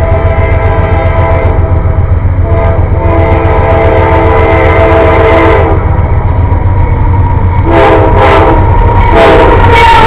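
A CSX freight's GE diesel locomotive air horn sounding on the approach, in the long, long, short, long grade-crossing pattern: two long blasts, then a short one near the end and a long one starting just before the locomotive passes. A heavy low diesel rumble runs under it.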